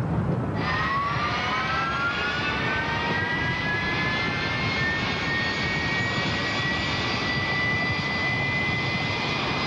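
Sea Harrier jet engine (Rolls-Royce Pegasus turbofan) running up: a whine starts about half a second in, climbs in pitch over the next few seconds and then holds steady over constant jet noise.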